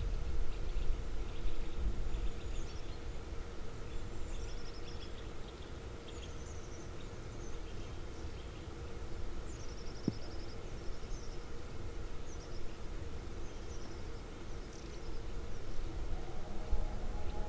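Small bird giving short, high, downward-sliding calls, roughly one a second, over a steady low outdoor noise and a faint hum.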